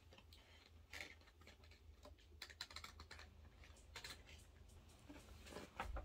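Faint, irregular clicks and crunches of teeth biting and chewing a moulded chocolate bulldog.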